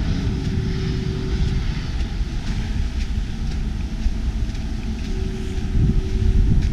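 Jet airliner coming in to land at a distance: a steady engine rumble with a faint held hum.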